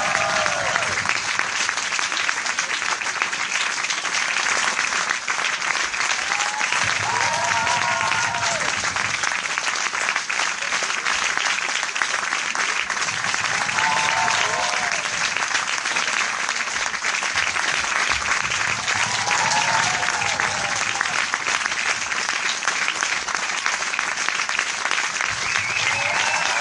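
Large crowd applauding steadily with dense, continuous clapping. About every six seconds a brief shout or cheer rises above it.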